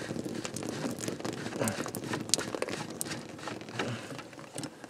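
Irregular small clicks, drips and rustles as a plastic RV shower drain trap is worked loose by hand, with water trickling out of it onto the hands.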